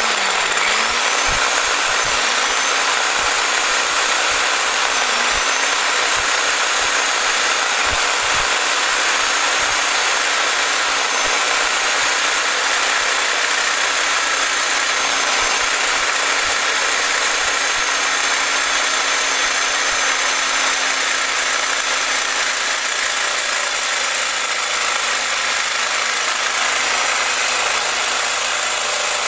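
Reciprocating saw with a carbide-tooth Milwaukee Torch blade cutting through a rusted steel leaf-spring U-bolt, running steadily. The motor's pitch sags briefly a few times in the first five seconds as the blade bites into the steel.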